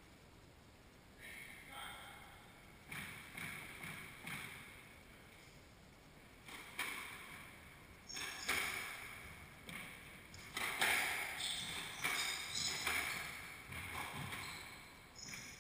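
Squash rally: the ball cracking off rackets and the court walls again and again, each hit echoing in the enclosed court, starting about a second in. A few short sneaker squeaks on the hardwood floor come between the hits.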